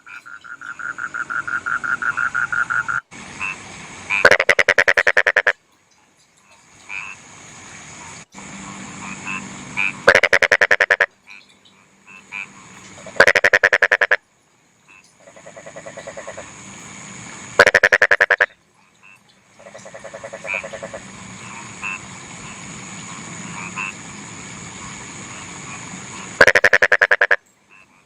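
Rice-field frogs calling: loud rattling croaks about a second long, repeated five times, with quieter pulsed calls from other frogs in between.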